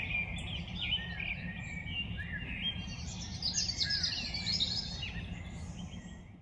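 Several birds singing together, many quick chirps and short trills overlapping, over a steady low rumble; the sound fades out at the end.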